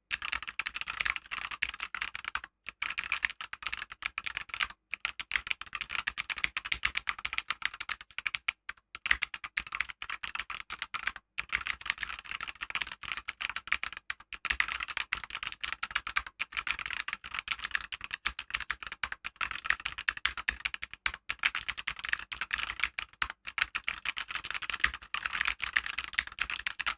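Fast continuous typing on a Keychron K2 V2 mechanical keyboard with Gateron red linear switches: a dense stream of key clacks with a few brief pauses.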